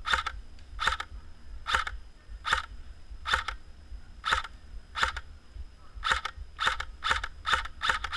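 Airsoft gun firing single shots, about one a second, then quickening to two or three a second from about six seconds in.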